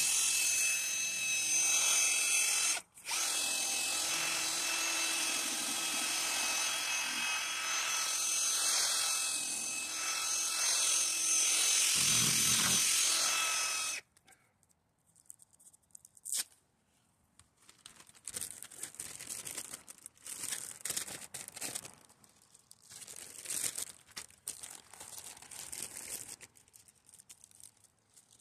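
A drill-driven sanding pad running against a plastic headlight lens, grinding off oxidation with a steady whine. It breaks off briefly about three seconds in and cuts off suddenly about halfway through. After that come quieter, irregular scraping and rubbing sounds of handwork on the lens.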